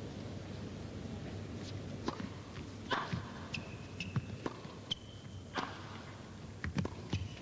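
Tennis ball being bounced and struck by rackets in a rally, sharp pops about a second apart from about two seconds in, with short high squeaks of sneakers on the court surface.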